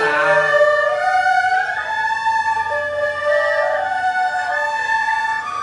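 Erhu bowed through a broken-chord sequence exercise: a string of single held notes stepping up and down through the chord, with slides between some of them.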